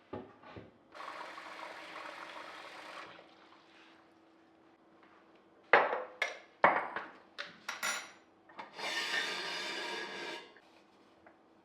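Water running from a tap in two short stretches, with several sharp knocks and clinks of glass or crockery being handled in between.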